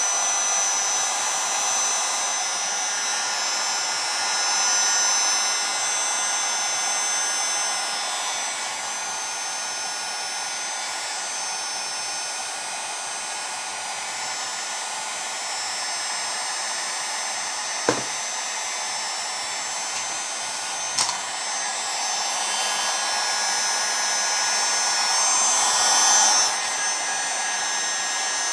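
Electric heat gun running steadily, blowing hot air onto the magnesium MS660 chainsaw crankcase to expand the bearing bore before the new bearing is pressed in. Two light clicks about two-thirds of the way through.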